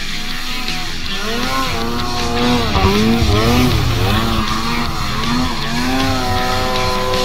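2021 Arctic Cat Riot X snowmobile's two-stroke engine revving up and down as the sled carves through deep powder, the pitch rising and falling repeatedly, then holding steady near the end.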